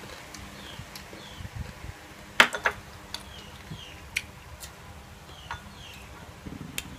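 Chopsticks clicking against a ceramic rice bowl while eating: scattered sharp clicks, the loudest a little over two seconds in. Faint short falling chirps of small birds come and go in the background.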